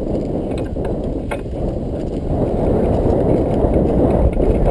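Wind buffeting the microphone during a trail-a-bike ride: a steady low rumble, with a couple of faint clicks from the bike in the first second and a half.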